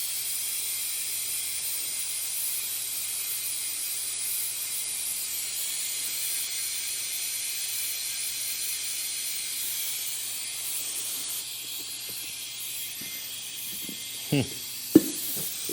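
Compressed air hissing steadily as a golf cart tire is aired up, with a faint low hum underneath: the tire is not yet taking air. The hiss eases a little later on, with a couple of short knocks near the end.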